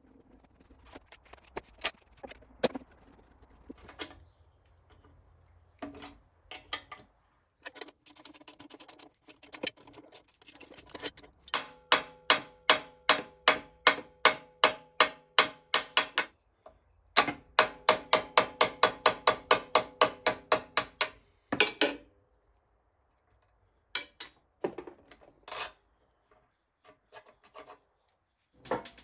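Hammer blows on a steel pin in a mini excavator's steel panel bracket, driving the pin out. First come scattered knocks and scraping. Then two long runs of quick, even taps follow, about four or five a second, and the steel rings with each blow.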